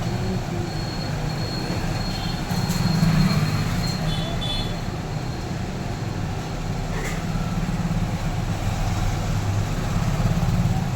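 Hot-air SMD rework station blowing steadily at its 480 setting, a continuous rushing noise with a faint high whine in the first few seconds.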